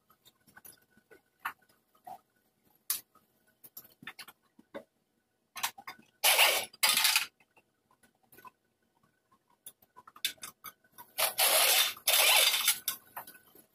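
Small clicks, knocks and scrapes as a plastic bumper cover and its fittings are handled. Two short loud bursts of hiss come about six seconds in and two longer ones near the end, from a handheld compressed-air tool being run against the bumper.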